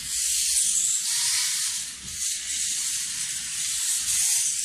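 Small electric motors of a toy drone-motorbike running with a steady high hiss as it drives across a hard floor.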